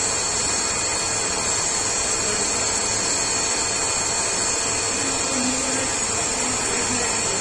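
CNC lathe running an automatic machining cycle, its spindle turning at about 1200 rpm as the tool moves through the program: a steady machine noise with a high hiss and a low hum.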